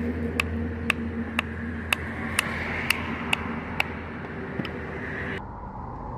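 Hard shell of a wood apple being tapped with a wooden stick to crack it, sharp knocks about two a second that stop about four and a half seconds in. A steady low hum runs underneath.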